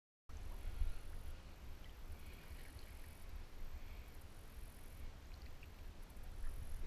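Low, uneven rumble with faint small ticks and splashes: river water sloshing around a camera held right at the surface as a scuba diver comes up.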